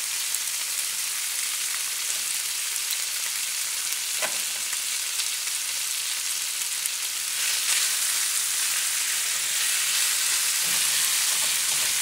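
Kimchi fried rice with sliced bologna sizzling steadily in a frying pan, a high hiss that gets a little louder about two-thirds of the way through.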